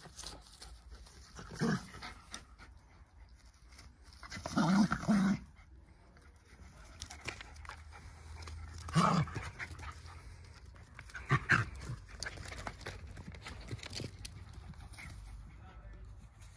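Two Jack Russell terriers play-wrestling, letting out four short, loud vocal outbursts: about two seconds in, a longer and louder one near five seconds, one around nine seconds and one around eleven and a half seconds.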